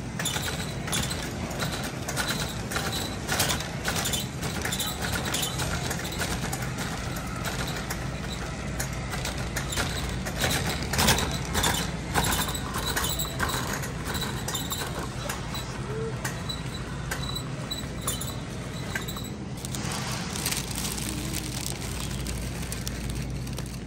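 Shopping cart rolling and rattling, with many small clatters over a steady low hum.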